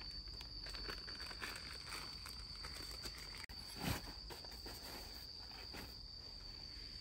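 A steady, high-pitched insect drone, with light rustling and clicks and one dull thump a little before four seconds in, from bedding and a bag being handled in a car boot.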